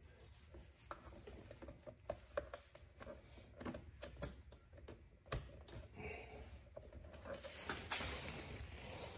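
Scattered light clicks, taps and small knocks of parts being handled, with a longer rustle near the end.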